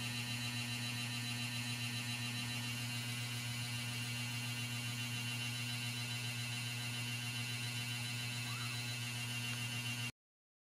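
Steady electrical mains hum with a constant hiss, and a faint short squeak about eight and a half seconds in. The sound cuts off abruptly about ten seconds in.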